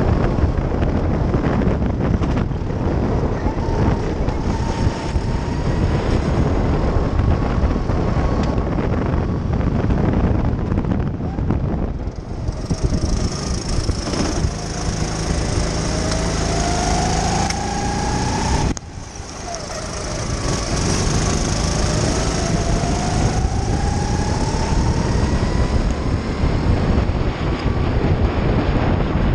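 Kart engine heard from on board, rising steadily in pitch as it accelerates, then cutting sharply off throttle a little under two-thirds through before climbing again.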